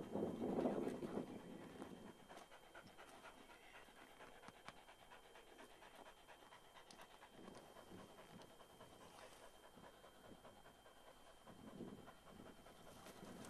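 Pointer dog panting faintly and steadily, louder for the first second or so. The dog is tired from retrieving rabbits in the summer heat.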